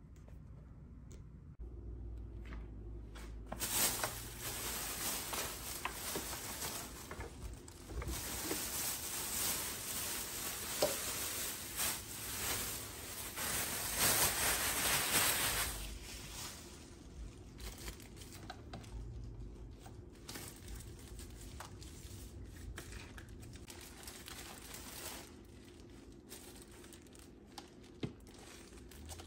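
Plastic packaging crinkling and tearing as it is pulled off the parts of a new espresso machine. The crinkling is loudest from a few seconds in until about halfway, then turns to softer rustling with a few small clicks.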